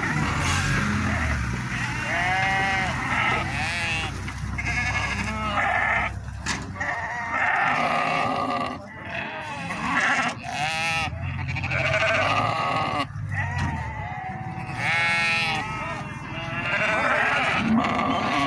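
A flock of Sardi sheep bleating, with many short calls throughout, some of them overlapping.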